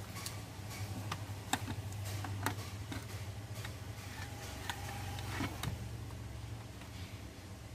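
Scattered light clicks and taps as a hand handles a Kyocera FS-6525MFP photocopier drum unit and its drum, over a steady low hum.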